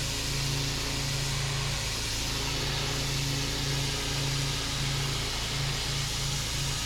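Pressure washer running steadily: a low engine hum under the even hiss of the water jet.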